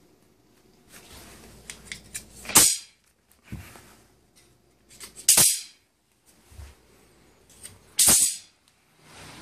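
Springy steel tape-measure elements of a homemade Yagi antenna, bent by hand and let go, each springing back straight with a sharp snap. There are three snaps, about two and a half seconds apart, each after a short run of rattling and clicks.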